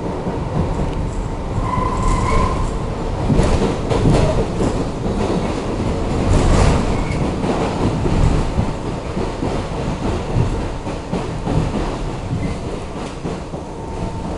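Inside a moving New York City subway car: the steady low rumble of wheels on track, with clacks and knocks as the car goes over rail joints. There is a short high squeal about two seconds in.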